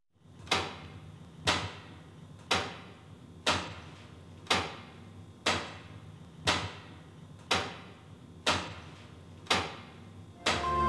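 Mechanical clock movement ticking: ten sharp ticks, one each second, each ringing briefly. Music comes in just before the end.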